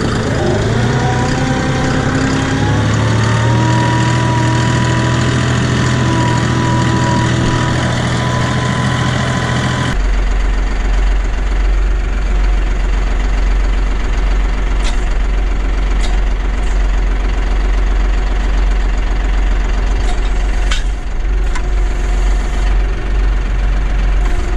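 Compact tractor engine running as the tractor is driven, its pitch rising just after the start and then holding steady with a constant whine. About ten seconds in the sound changes abruptly to a steady low engine rumble, with a few short clicks.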